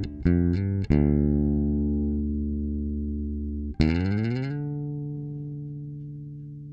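Outro music on guitar and bass: a quick run of notes, then a chord held and ringing out from about a second in. Near four seconds a second chord is struck, slides down in pitch and slowly fades.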